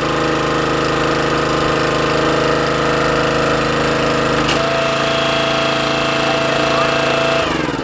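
Small gas engine of a Mighty Mac hydraulic log splitter running steadily. About halfway through there is a sharp crack, and a steady higher whine joins the engine note. The sound drops off near the end.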